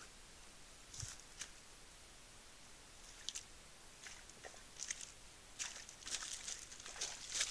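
A deer stepping and nosing through dry leaf litter close to the trail camera: scattered crackles and rustles of dry leaves, sparse at first and more frequent near the end.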